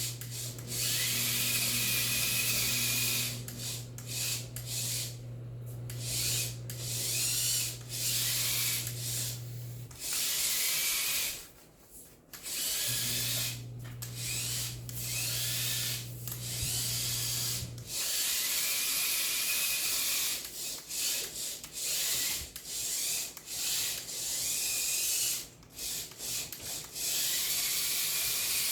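Small motors of a homemade wheeled robot vacuum whirring in repeated stop-and-start bursts: a hiss with a whine that rises as each burst begins. Under them is a steady low hum that breaks off briefly partway through and stops about 18 seconds in.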